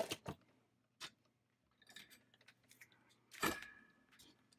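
Handling noise of an essential oil diffuser's power cord and plastic base on a work mat: scattered clicks and knocks, the loudest about three and a half seconds in.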